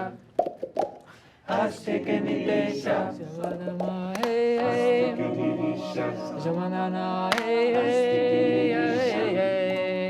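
A group of voices singing together without accompaniment, holding long notes in several parts, after a few short sounds in the first second or so.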